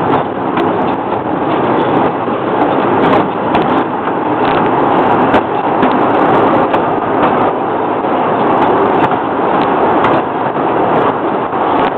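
Open passenger car of a miniature park train rolling along its track: a steady rumble and rattle of the wheels and car body, with irregular sharp clicks and clacks.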